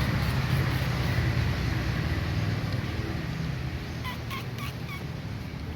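A steady low rumble, with four short rising chirps from an animal, evenly spaced, about four seconds in.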